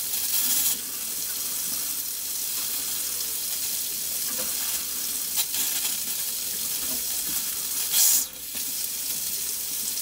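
Kitchen faucet running on hot into the sink, a steady hiss of falling water that grows louder for a moment at the start and again about eight seconds in. The hot line is being run to purge the air left by refilling the water heater.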